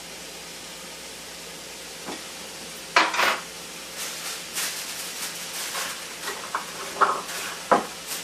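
Vegetables frying in oil in a pan, sizzling steadily. About three seconds in comes a sudden loud rip, then a run of irregular crinkling and rustling as aluminum foil is torn off and pressed into shape.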